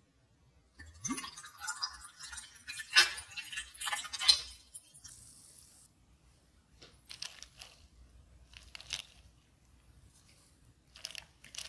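Tonic water poured from a bottle over ice into a tall glass: splashing with clinks of ice for about four seconds, followed by a brief fizzing hiss. Later come a few soft scattered clicks and crackles from the ice as a raspberry garnish is dropped in.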